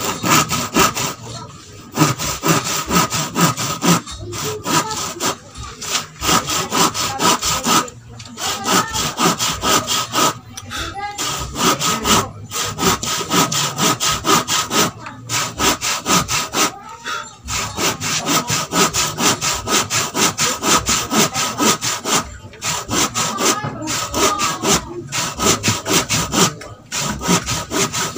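Hand saw cutting through a wooden plank with rapid back-and-forth strokes, in runs broken by short pauses every few seconds.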